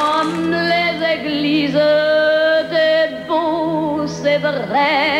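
A woman singing a French chanson in long held notes with a wide vibrato over a sustained low accompaniment; the voice comes in right at the start, as applause dies away.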